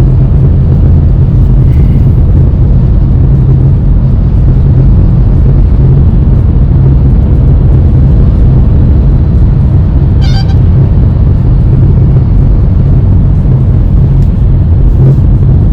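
Cabin noise inside a moving Honda Elevate SUV: a steady low rumble of road and engine noise. About ten seconds in there is a brief high-pitched tone.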